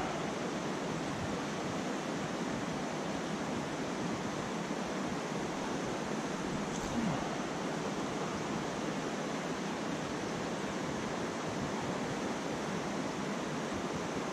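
Steady rushing of a rocky mountain trout stream, an even wash of flowing water over riffles.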